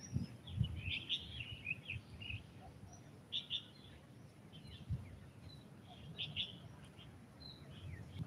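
Small birds chirping in the trees overhead: faint, scattered short chirps and twitters throughout, with a few soft low thumps.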